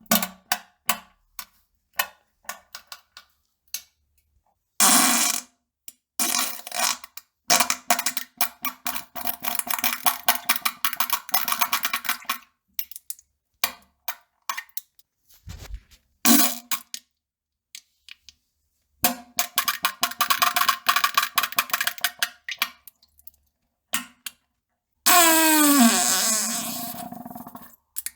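A string of farts, one after another: rattling, sputtering bursts of rapid pulses, some short and some lasting several seconds. The last long one, near the end, slides down in pitch.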